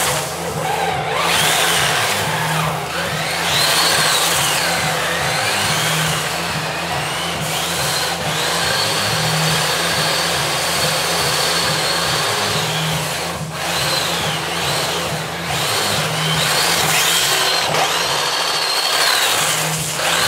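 Electric drive motor and gearbox of a radio-controlled scale model flatbed truck hauling a load of lumber, whining and rising and falling in pitch several times as the truck speeds up and slows down, over a low, regular pulsing.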